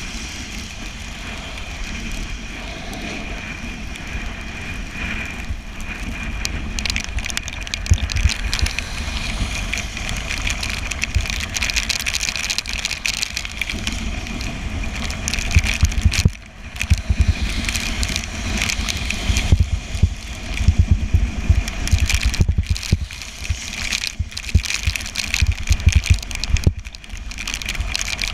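Bicycle coasting downhill in the rain: wind gusting over the microphone, with the hiss of tyres on wet road.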